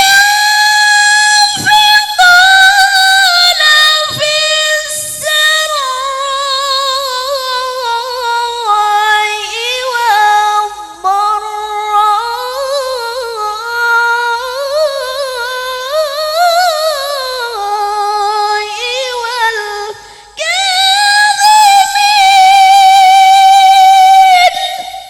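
A Quran reciter's solo voice in tilawah style. It opens on a held high note and moves through long ornamented, melismatic runs that rise and fall. After a short break about twenty seconds in, it sustains a long high note that fades out near the end.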